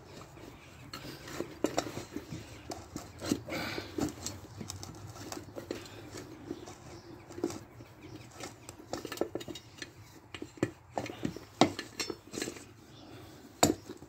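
Handling noise as a rubber inner tube is pushed and worked into a wheelbarrow tyre by hand. It is made of irregular rubbing and scuffing with scattered light clinks and knocks, one sharper knock coming near the end.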